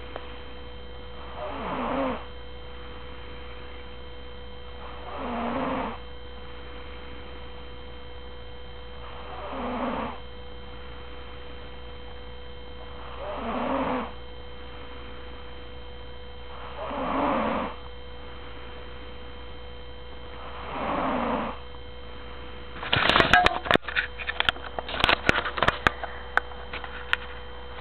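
A sleeping woman snoring: six slow snores, each about a second long, coming every three and a half to four seconds over a steady electrical hum. Near the end the snoring gives way to a burst of crackling and rustling.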